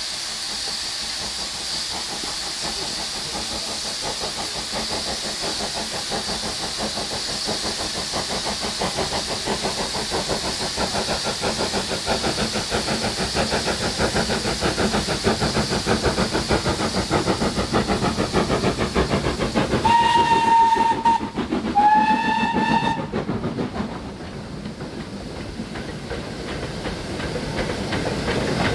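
Steam locomotive working, with a steady hiss and a rhythmic beat that grows louder. About twenty seconds in it sounds two short single-note whistle blasts, each about a second long. After the second blast the hiss drops away and the sound falls back before building again.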